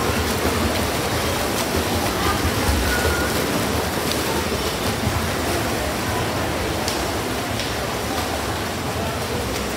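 Steady, echoing din of an indoor swimming pool during a freestyle race: splashing from the swimmers' arm strokes and kicks mixed with the crowd's voices.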